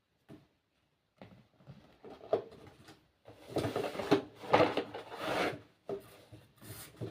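Products and packaging being handled: a few scattered knocks and clicks, then a busier stretch of rubbing, scraping and clatter in the middle, and two more knocks near the end.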